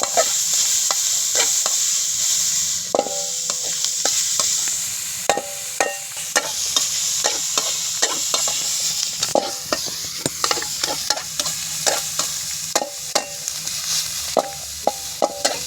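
Morning glory (phak bung) being stir-fried: oil sizzling steadily in a hot pan while a utensil stirs and tosses it, with frequent sharp clanks on the pan, some ringing briefly.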